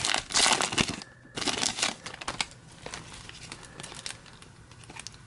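Wrapper of a hockey card pack crinkling as it is torn open, loudest in the first two seconds, then fainter rustles and small clicks as the cards are leafed through.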